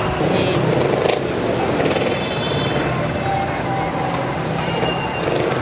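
Busy street noise: a motor vehicle's engine running nearby, with a low steady hum under murmured crowd chatter.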